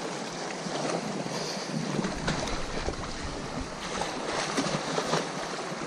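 Sea waves washing and surging against a rocky shore, with wind buffeting the microphone.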